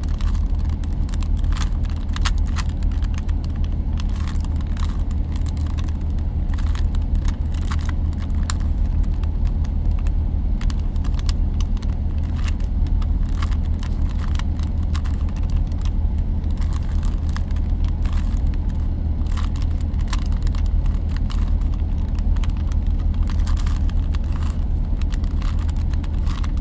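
Plastic Rubik's Cube layers being turned in quick succession: a stream of irregular clicks and clacks over a steady low hum.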